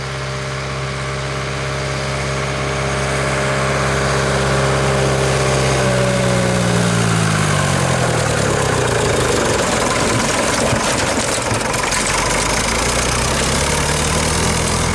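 Nuffield tractor engine running steadily as the tractor drives up and passes close by. It grows louder as it nears, its pitch drops as it goes past about seven seconds in, and it runs on rougher and louder as the tractor pulls away.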